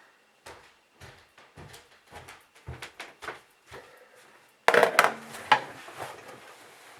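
Small hard objects being handled and set down on a work surface: a scatter of light clicks and knocks, with a louder clatter about five seconds in.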